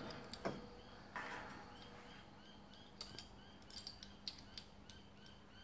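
Faint metal clicks and light scraping as a steel door stop is fed into a sliding door's overhead track, after a single knock about half a second in, over a steady low hum.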